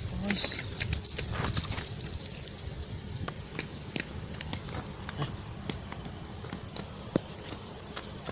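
Steady high-pitched insect buzzing that cuts off abruptly about three seconds in, over a low rumble. After it come scattered light clicks and scuffs of handling and footsteps on dirt, with one sharper click about seven seconds in.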